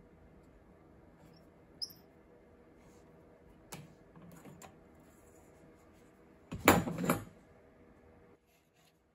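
Hands adjusting a wooden stop block on a crosscut sled make a brief high squeak, a few light taps, then a short clatter of several knocks about seven seconds in, the loudest sound. A faint steady hum runs underneath.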